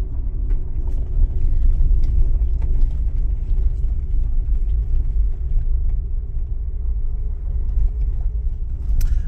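Jeep driving slowly on a dirt road, heard from inside the cab: a steady low rumble of tyres and drivetrain, with scattered light ticks of gravel.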